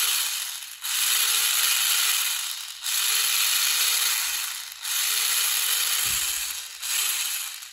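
Small brushed DC motor spinning the plastic gears of a clear gearbox, a loud whirring gear rattle that starts and stops in a steady cycle about every two seconds, each run carrying a faint whine that rises and then falls. The rhythm is the ESC switching the motor on for a second and off for a second under Arduino control.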